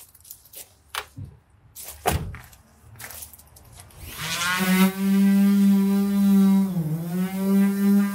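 A few handling knocks, then an electric orbital sander starts about four seconds in and runs with a steady whine, its pitch sagging briefly about seven seconds in, as it sands the bare bodywork of a van panel.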